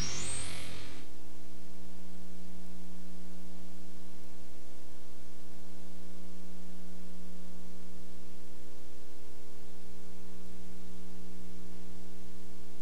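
Music cuts off about a second in, leaving a steady electrical hum with faint hiss on a blank stretch of tape.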